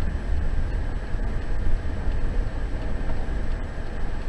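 Steady low rumble of a car's road and engine noise, picked up by a dashcam inside the cabin while driving.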